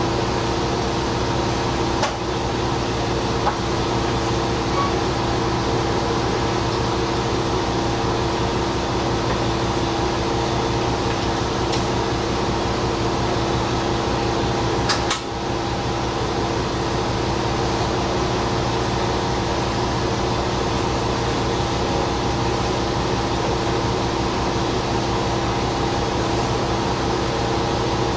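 Diesel railcar's engine idling steadily while the train stands at a station, heard from the cab: a constant hum with several steady tones. A brief click about two seconds in and another about fifteen seconds in.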